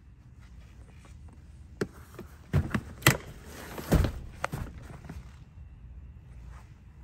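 Second-row seat of a Lexus LX470 being folded and tumbled forward: a series of latch clicks and clunks, loudest about three and four seconds in, with rustling in between.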